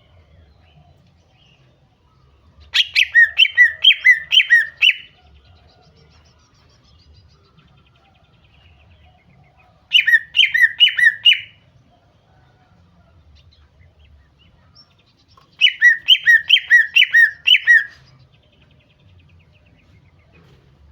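Female greater green leafbird (cucak ijo) calling in three short bursts of rapidly repeated whistled notes, the kind of call used to stir a male into singing.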